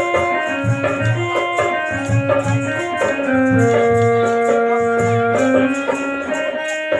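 Instrumental interlude of a Hindi devotional-film-style song: a keyboard melody with a few long held notes about halfway through, over a steady beat of tabla-like drums and a shaker.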